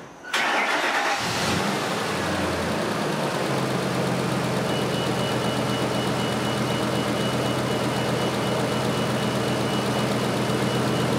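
Pickup truck engine starting: a brief burst of starter cranking, catching about a second in, then idling steadily.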